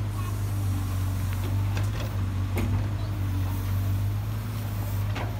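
Diesel engine of a Case backhoe loader running steadily under hydraulic load as the backhoe lifts a bucket of dirt, with a few short knocks from the machine around two seconds in and near the end.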